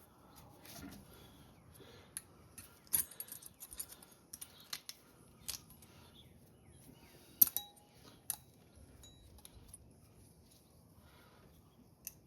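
Scattered small metallic clicks and clinks of brake pad hardware being handled and pushed into place on the caliper bracket, with a sharper click about seven and a half seconds in.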